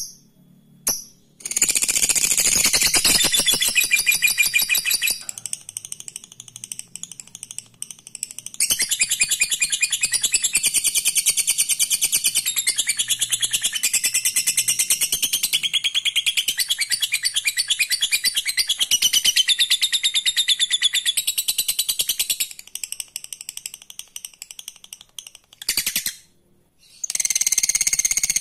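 Lovebird's 'ngekek' song: long bouts of fast, high-pitched chattering trill. One bout runs from about 1.5 to 5 seconds in and a longer one from about 8.5 to 22 seconds, with scattered notes between and a further bout starting near the end.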